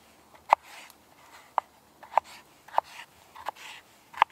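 Knife slicing through raw potato on a sawn wooden log round, each cut ending in a sharp tap of the blade on the wood. Six taps come at a steady, unhurried pace, with faint scraping of the blade between them.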